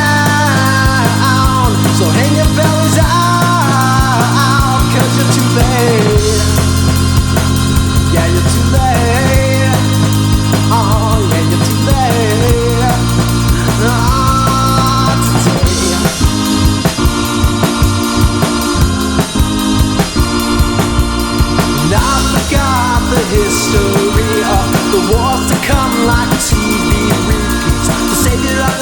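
Psychedelic rock music: a bending, wavering melody over held low notes that change every few seconds, with a busier drum beat coming in about halfway through.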